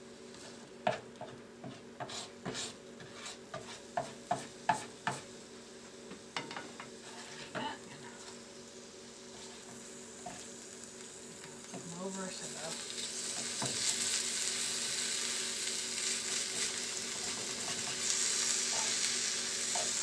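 Spatula and fork clicking and scraping against a nonstick skillet as diced chicken is cut and turned, a quick run of taps over the first several seconds. From about twelve seconds in, the chicken's frying sizzle builds up and grows louder.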